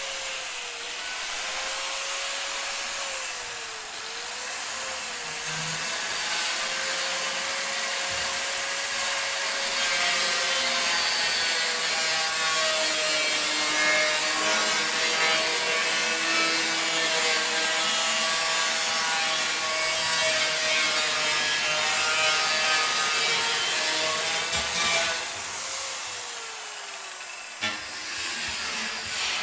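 Angle grinder grinding metal: a steady motor whine over a continuous hiss of the disc on the metal. The whine dips in pitch briefly twice around four and five seconds in and sags again near the end.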